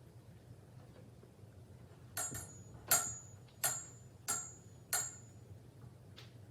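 Five sharp metallic strikes about 0.7 s apart, each leaving a short high ringing tone, over a low steady hum.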